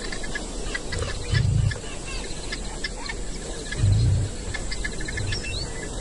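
Bush ambience of birds calling and insects chirping, with many short chirps, broken by two short low booms about a second in and about four seconds in.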